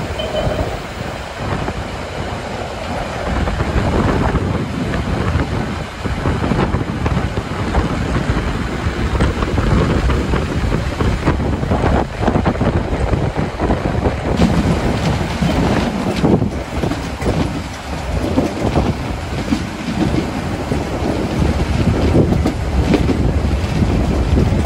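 Steam train running: a steady, loud rumble of the moving train with a few short knocks along the way.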